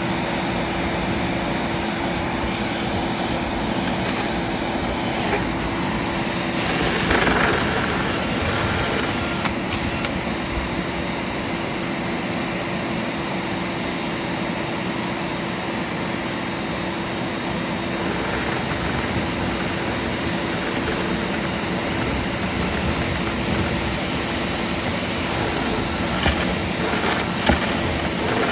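Dryer vent cleaning machine's motor running steadily, with air rushing through the duct and a steady hum. It is briefly louder about seven seconds in.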